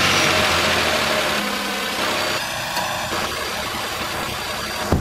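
Nissan Pathfinder engine running at a fast idle just after starting, its level easing down over the seconds. A single sharp thump near the end.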